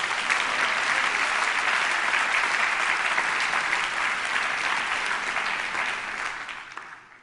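Audience applause, a large crowd clapping steadily, dying away near the end.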